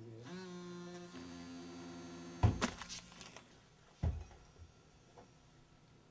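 A steady pitched tone that steps up in pitch twice, cut off about two and a half seconds in by a loud thump with a crackle, then a second thump about a second and a half later.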